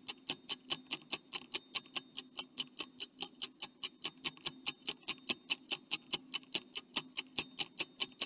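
Stopwatch ticking sound effect, about four sharp ticks a second over a faint low hum, marking a countdown timer; it cuts off abruptly at the end.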